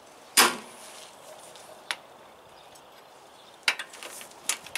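Steel hand tools clanking against a truck's rear suspension while wrenches are set on its seized torsion-rod bolts. One loud metal clank about half a second in, a light click, then a quick run of smaller knocks and clicks near the end.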